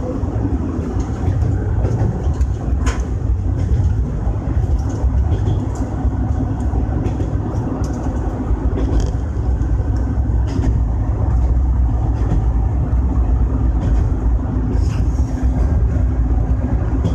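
Kanto Railway KiHa 310 series diesel railcar running along the track, heard from inside the cab: a steady low rumble of engine and wheels on rail, with a few sharp clicks along the way.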